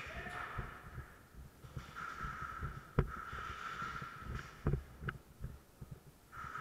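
Footsteps and gear and camera handling thumps as an airsoft player moves through an indoor course, with a hiss that comes and goes. A few sharp clicks come in the second half.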